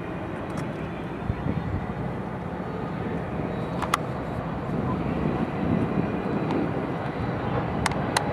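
Distant, steady rumble of a freight train's diesel locomotives moving slowly across a bridge, blended with city road traffic and growing slightly louder toward the end. A few sharp clicks come about four seconds in and twice near the end.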